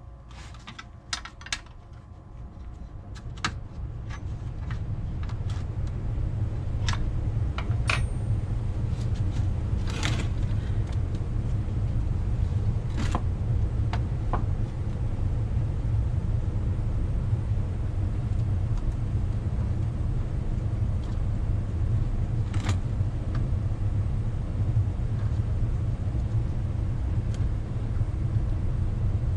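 A low, steady mechanical rumble swells up over the first few seconds and then holds. Over it come light metallic clicks and clinks of small parts being handled, most of them in the first half.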